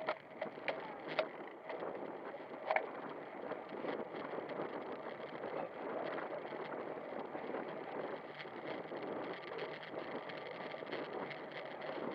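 Road bike in motion heard from a camera on the bike: a steady rush of tyre and wind noise, with a few sharp clicks or rattles in the first three seconds.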